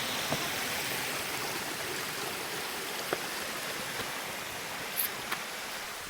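A moorland stream rushing steadily over rocks, with a few short sharp clicks scattered through it.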